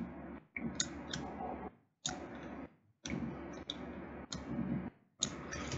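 A few scattered computer mouse clicks over faint microphone background noise that drops out completely several times.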